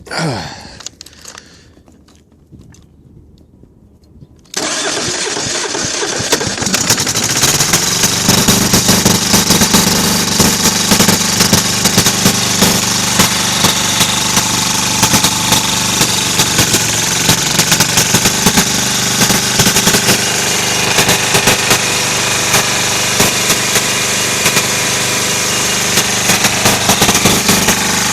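Kohler KD425-2 two-cylinder diesel engine catching and starting abruptly about four and a half seconds in, after a short falling whine and a few seconds of quiet. It then runs on steadily with a dense, rapid clatter, its exhaust broken.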